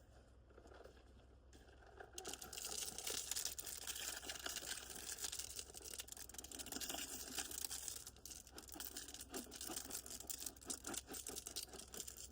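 Gravel and rocks crunching and scraping as they are spread into a driveway rut: a steady rush beginning about two seconds in, then a run of rougher separate scrapes over the last few seconds.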